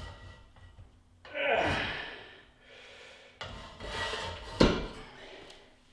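A man breathing out hard in long, strained breaths while holding a 60 kg load on a homemade grip machine. A single sharp knock comes about two-thirds of the way through, as the loaded machine is set back down.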